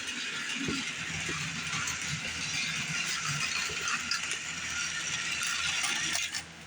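Battery-powered Plarail toy trains running on plastic track: a steady whirring rattle of small motors and gears that cuts off suddenly near the end.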